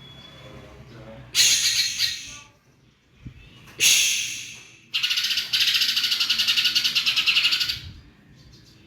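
Cucak ijo (green leafbird) giving harsh, hissing rasps: a short one about a second and a half in, another about four seconds in, then a long, rapidly pulsing rattle lasting nearly three seconds.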